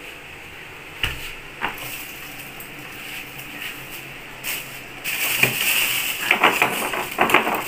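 Glasses and ice cubes being handled: a couple of sharp knocks, then from about five seconds in a run of quick clinks and rattles over a hissing rush as drinks with ice are prepared.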